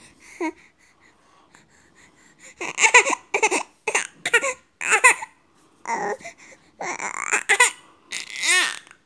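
A five-month-old baby babbling in a string of short, high-pitched sounds, sparse at first and coming thick and fast from about two and a half seconds in, ending in one longer sound that rises and falls near the end.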